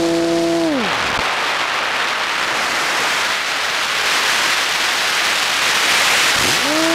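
A model airplane's motor whine drops in pitch and cuts out about a second in, leaving only wind rushing over the airframe and onboard microphone as the plane glides down, the rush growing stronger. Just before the end the motor spins back up to a steady whine.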